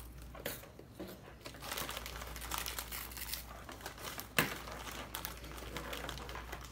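Crinkling of a snack bag as a hand rummages inside it, with small crackles throughout and one sharper tap about four seconds in.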